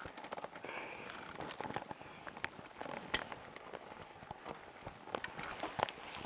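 Scattered, irregular light clicks and scuffs with no engine running: the BSA A65 stays dead after its electronic ignition failed.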